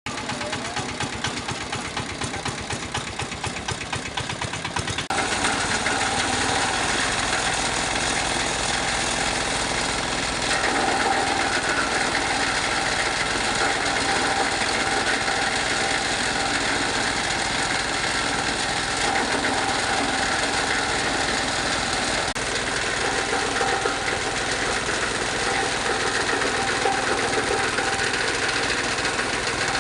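Fabric shredding machine running steadily while shredding thin dacron-layered fabric. About five seconds in its sound gets louder and fuller, then holds steady.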